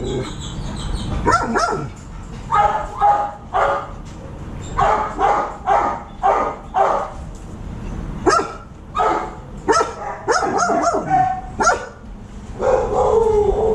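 Dog barking repeatedly: short, sharp barks in loose runs of two or three, with brief pauses between runs.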